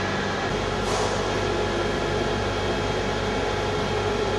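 Steady hum of background workshop machinery with a few constant tones, a deeper rumble joining about half a second in.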